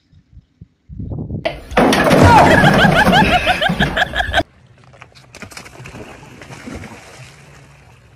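Large ceramic jars smashing and liquid splashing across the ground, with loud shouting over it. The sound cuts off suddenly and gives way to quieter sea water sloshing.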